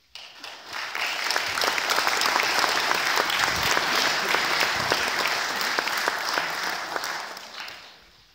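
Audience applauding, swelling over the first second, holding steady, then dying away near the end.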